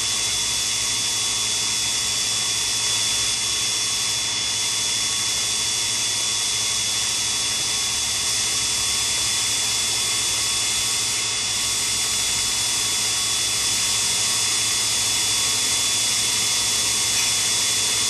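Sherline cam grinder's grinding-wheel spindle running steadily: a constant high-pitched whine over a hiss, with a low hum beneath.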